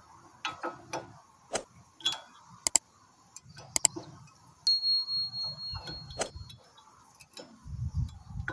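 Sharp metallic clicks and taps as new brake pads are handled and fitted into the caliper, with a thin steady high-pitched whistle for about two seconds in the middle.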